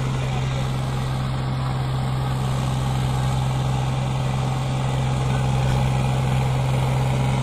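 Sonalika DI 745 tractor's diesel engine running steadily as it pulls a fully loaded trolley slowly forward.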